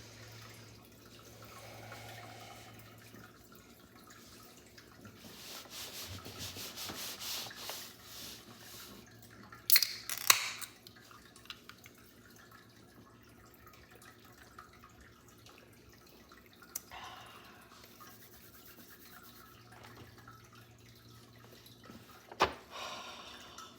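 Package being handled and unwrapped: rustling and scraping strokes, with a few sharp clicks and knocks, over a faint steady low hum.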